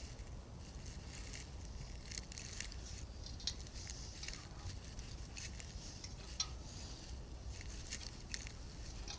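A 1/4-20 hand tap turned in a tap wrench, cutting threads in a steel plate: small irregular metallic clicks and scrapes as it cuts, with one sharper click about six and a half seconds in.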